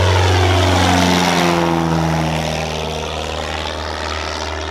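Single-engine propeller plane flying past, its engine note falling steadily in pitch as it passes and slowly fading.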